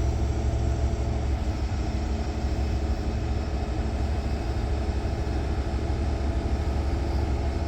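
Heavy-duty tow truck's diesel engine running steadily, a constant low drone, while it powers the winches during a slow lift.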